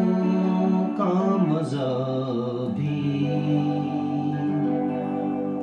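Ghazal accompaniment on a Les Paul–style electric guitar: an instrumental fill between sung lines, settling into long held notes about three seconds in.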